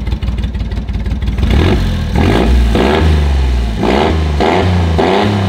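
1996 Honda Acty's carbureted three-cylinder engine running straight-piped with no muffler: a fast, even popping idle, then about six quick revs, each rising and falling in pitch, from about a second and a half in.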